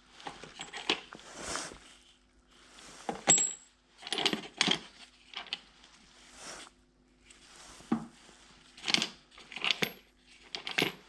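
Small metal parts and tools clinking and rattling as they are handled, in irregular bursts with short bright rings between quieter moments.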